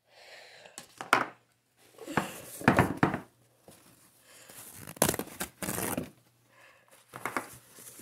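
Paper towel being torn and rubbed over a spatula to dry it: several separate bursts of tearing and crinkling paper.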